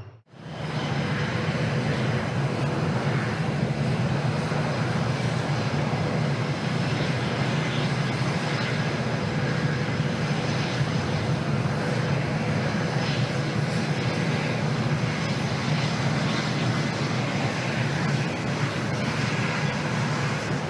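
Saab JAS-39E Gripen fighters taxiing, their jet engines running steadily: a dense rumble with a faint steady whine above it, cutting in after a brief drop-out at the very start.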